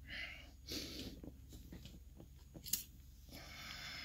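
Faint clicks and scratchy rustles of fingers handling a small brass lock core and its loose pins, with one sharper click about two-thirds of the way through.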